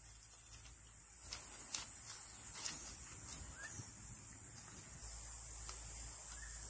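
Small wood campfire burning, with a few sharp snaps and clicks of twigs as sticks are fed and poked into it, over a steady high hiss.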